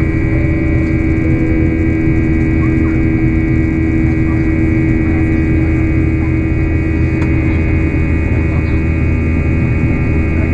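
Steady drone of a Boeing 737-800 in flight, heard inside the cabin beside the wing: the CFM56 jet engines' low rumble with several steady humming tones.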